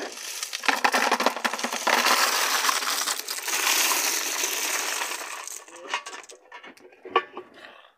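Hot cooking water poured off a pot of sarnambi clams into a plastic bucket: a splashing rush of water with the shells clattering in the pot. It stops after about five and a half seconds, followed by a few scattered clinks.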